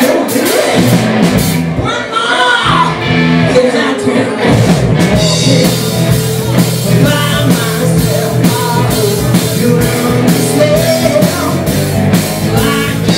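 Rock band playing live: electric guitar over a drum kit, with bass and cymbal hits keeping a steady beat.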